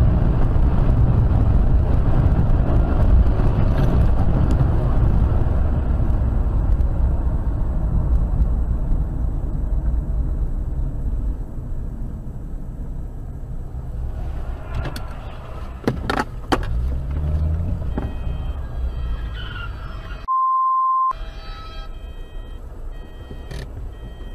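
In-cabin road and engine noise from a car driving at speed on a highway: a steady low rumble that eases off about halfway through, with a few sharp clicks. About twenty seconds in, a short steady high beep cuts in, under a second long.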